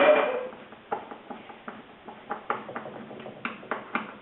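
Light, irregular clicks and taps of an Allen key and screws being worked into a kids' scooter's deck while the decking is fastened back on.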